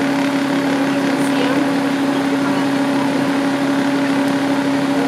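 Tour bus engine idling: a steady, unchanging hum.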